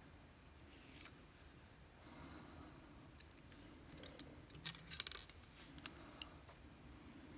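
Faint, scattered clicks and clinks of small metal lock parts being handled: a few light taps about a second in and a brief cluster of clinks around the middle.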